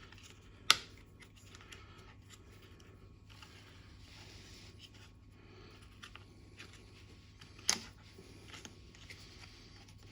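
Small plastic parts of a car's charging socket cover being handled, with two sharp clicks, about a second in and near the end, as clips or connectors are pressed and released.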